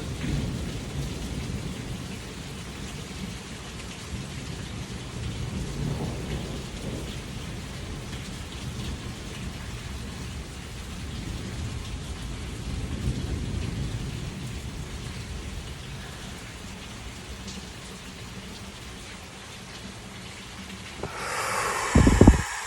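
Steady rain with thunder rumbling, swelling about six seconds in and again around the middle. A sudden loud burst comes near the end.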